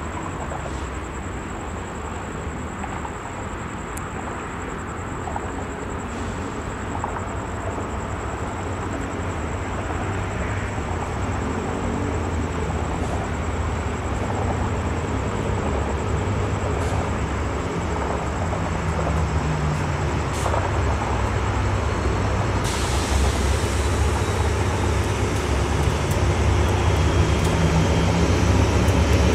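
SRT GEA-class diesel-electric locomotive No. 4533, hauling a passenger train slowly toward the listener, its engine running with a low rumble that grows steadily louder. About three-quarters of the way through, a higher hiss joins in.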